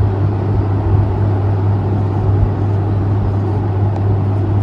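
A steady low hum over an even background noise, with no distinct events.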